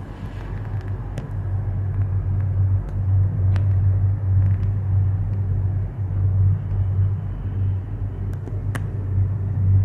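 Steady low rumble inside a moving Maokong Gondola cabin riding along its cable, swelling and easing, with a few faint clicks.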